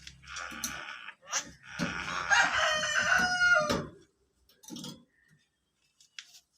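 Javan myna mimicking a rooster's crow: one loud call lasting about two seconds that ends in a falling note, preceded by a short hissy sound.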